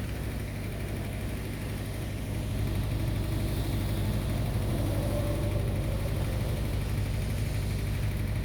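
A steady low mechanical hum with a fine, even flutter, growing a little louder about two and a half seconds in.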